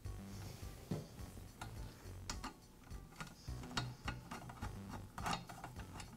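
A few scattered light metallic clicks and ticks as a screwdriver turns a screw through a circular saw's metal shoe into its clamping plate.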